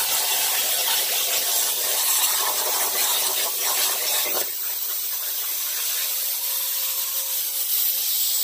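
Hypertherm Powermax 45XP plasma torch cutting aluminum plate on a CNC table: a loud, steady hiss of the arc and its air. About four and a half seconds in, the lower rumble under the hiss drops away while the hiss carries on.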